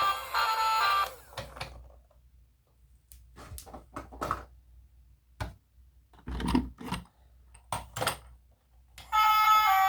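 Background music stops about a second in. It gives way to a quiet stretch of scattered short clicks and knocks, a few close together, with the loudest around the middle. The music starts again near the end.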